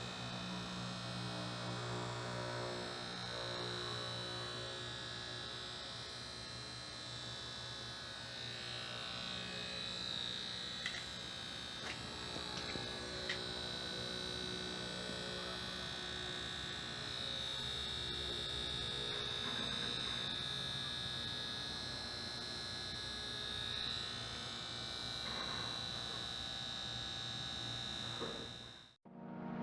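Samsung PL51E490 plasma TV's sustain boards buzzing: a steady high-pitched whine over a low electrical hum, with a few faint clicks. The noise goes with a dark, smeared picture, and the fault behind it was found to be a shorted display panel.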